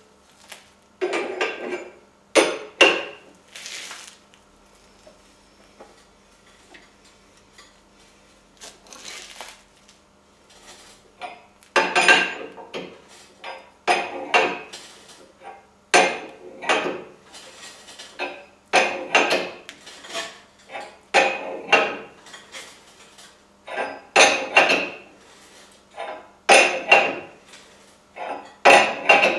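Sharp metallic clanks and chain clinks from a chain-pull setup being worked by hand to straighten a crumpled car's front inner wing, in spells of strokes about a second apart with a lull of several seconds early on.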